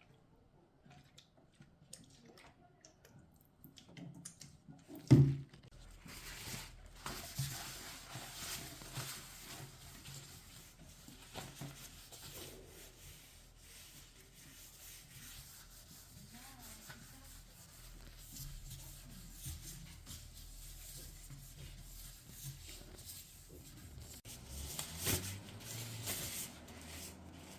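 Kitchen food-preparation handling sounds: a sharp knock about five seconds in, then a steady hiss with scattered small clicks and rubbing sounds.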